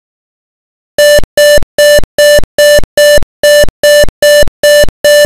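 Simulated buzzer of a PIC16F887 voltmeter-ammeter in Real PIC Simulator sounding its alarm, which this program raises when voltage or current goes over the preset limit. Short, identical, buzzy electronic beeps at one steady pitch, repeated a little over twice a second, starting about a second in.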